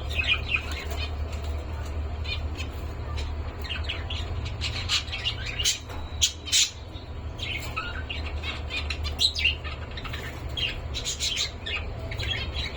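Pet cockatiels chirping over and over in quick short calls, with a few sharper, louder calls around the middle.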